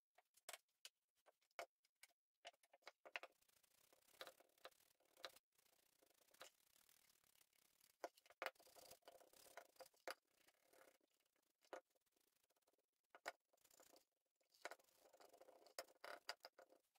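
Very faint brushing and scraping of a foam brush worked over a wooden box, with scattered light clicks and knocks as the box is handled and turned.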